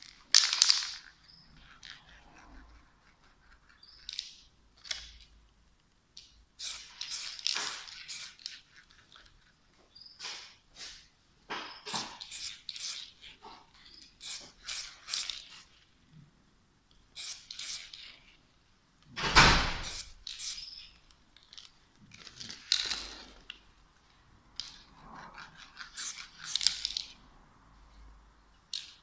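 Aerosol spray-paint can giving short bursts of spray a few seconds apart, with quick runs of clicks in between; the loudest burst comes about two-thirds of the way through.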